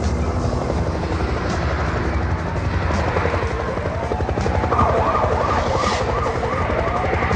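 Helicopter rotor chopping steadily, with police sirens coming in about halfway through: one wailing down and up, then a fast yelping warble over it.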